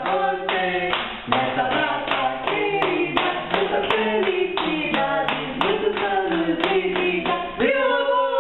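A song sung to steady hand clapping, about three claps a second. The clapping stops near the end, and a voice carries on.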